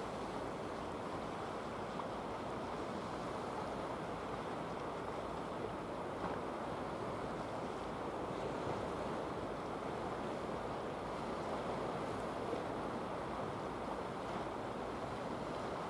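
Steady wash of sea surf, an even rushing noise with no distinct impacts or engine note standing out.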